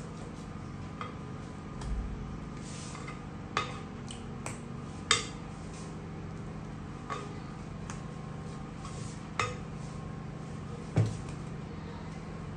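Spatula scraping cake batter out of a glass mixing bowl, with about five sharp knocks and clinks of the spatula against the glass, over a steady low hum.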